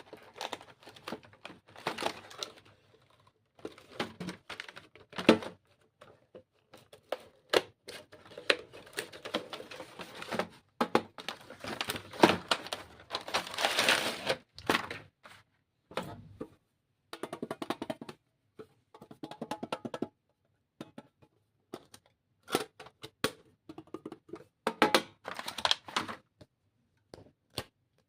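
Stationery items and their packaging being handled: irregular clicks and taps of plastic pieces being picked up and set down, with a longer crinkling rustle of packaging about halfway through.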